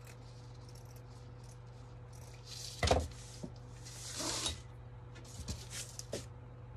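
Fabric and craft supplies handled on a tabletop: a knock about three seconds in, a rustle a second later, and a few light taps near the end, over a steady low hum.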